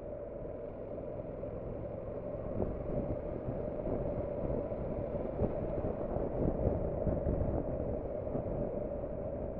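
Muffled wind and engine noise from a Honda NC750X DCT motorcycle riding along. Over a few seconds in the middle comes a run of knocks and jolts as the bike crosses a badly broken road surface.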